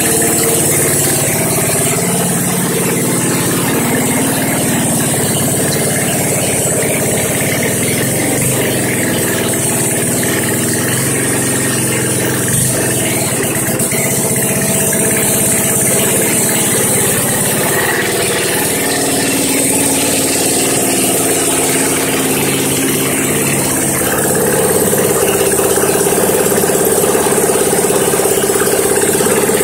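Yerf Dog go-kart's engine idling steadily and evenly, a little louder near the end.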